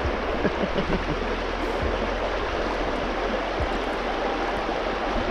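River current running steadily: a continuous rush and babble of flowing water.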